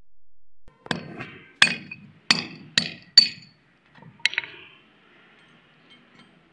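Hand hammer striking a small steel part held on a concrete floor: five sharp, ringing metallic strikes, each coming a little sooner than the last. About a second later come two lighter metal clinks.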